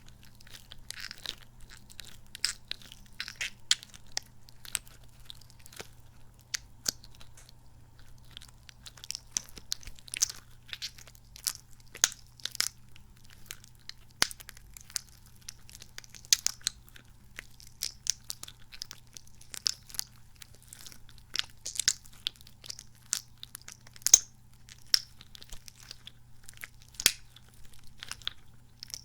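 Squishy, sticky kidney-bean toy squeezed and pressed by hand close to the microphone: sticky, squelching crackles and clicks coming irregularly, several a second.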